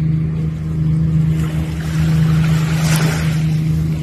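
Jet ski engine running at a steady pitch while cruising, with water rushing against the hull; the rush of water swells about three seconds in.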